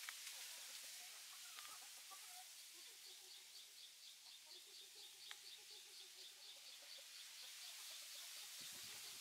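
Young chickens clucking faintly, a quick run of soft low clucks, with a faint high pip repeating about five times a second behind them.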